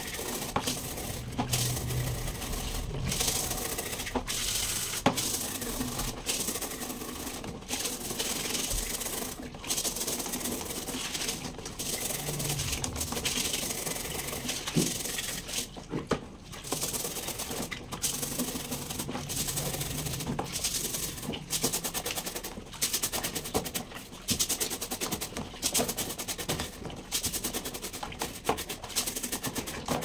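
Stiff-bristled brush scrubbing a fan's grille in rapid, uneven back-and-forth strokes, a steady scratchy rasp with short breaks between bursts of strokes.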